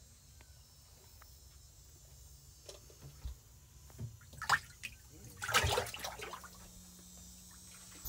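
Water splashing and sloshing in a boat's fish well as a hand reaches in and grabs a speckled trout. Faint drips and ticks come first, then a few short, loud splashes between about four and six and a half seconds in.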